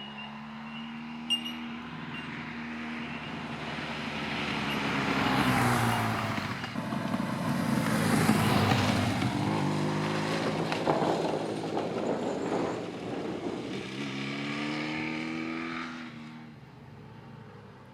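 A 1986 Honda VF1000F's V4 engine on its stock exhaust, passing by. The note builds to its loudest about eight seconds in and drops in pitch as the bike goes past. The revs climb again near the end before the sound fades away.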